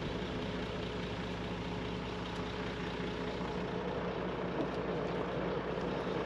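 Åkerman tracked excavator's diesel engine idling steadily, its hydraulic breaker not hammering.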